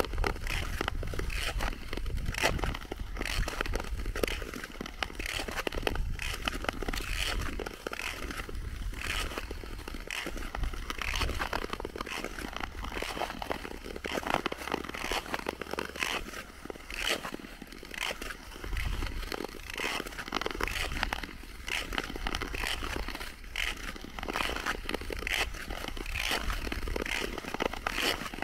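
Tour skate blades scraping and gliding on natural lake ice in repeated strokes, about one a second, over a low rumble.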